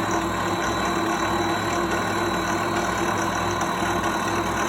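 Harbor Freight mini mill (Sieg X2 type) running steadily, its spindle motor and drive giving an even mechanical hum with a steady tone, with a dovetail cutter turning as the table is fed toward the cut.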